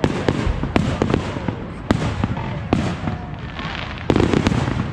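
Fireworks display: a quick string of sharp bangs and crackles over a low rumble, with a louder cluster of bursts about four seconds in.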